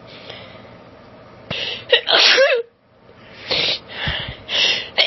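A woman's forceful, uncovered allergic sneeze about two seconds in, preceded by a quick inhale. It is followed by three gasping in-breaths building up to the next sneeze, which breaks right at the end.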